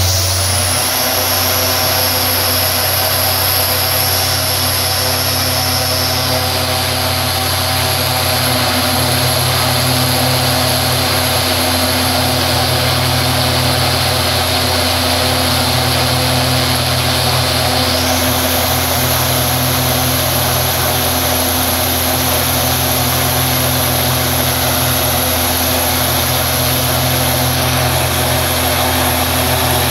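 OV-10 Bronco's Garrett T76 turboprop engine running on the ground with its propeller turning: a steady propeller drone under a high turbine whine. The whine rises right at the start and shifts pitch again about a third and two-thirds of the way through, as the engine's settings are changed during an engine trim run.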